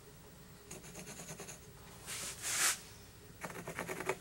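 Pencil marking lines on the wooden side of an epoxy pour form: several quiet scratching strokes, with a louder swish a little past two seconds.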